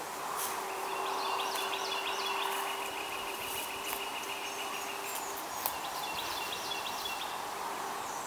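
Outdoor rural ambience: a steady wash of background noise with birds chirping and a rapid, evenly repeated high-pitched ticking call, over a faint steady hum that fades out about two-thirds of the way through.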